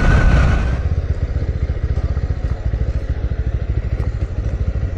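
Motorcycle engine idling with an even low putter. Wind noise on the microphone dies away about a second in as the bike comes to a stop.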